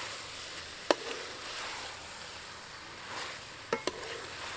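Metal ladle stirring boiled quail eggs through curry in an aluminium pot: a sharp clank about a second in and two quick clanks near the end as the ladle knocks the pot, over a steady soft hiss.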